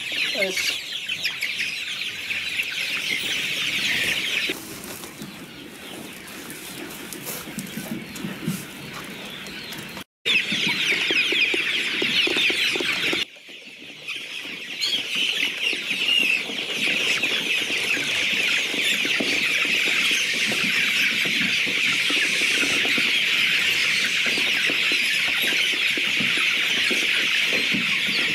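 A large flock of young chickens in a crowded poultry house peeping and chirping all at once, a dense high-pitched chatter. It drops quieter for a few seconds partway through and cuts out abruptly twice before running on strong and steady.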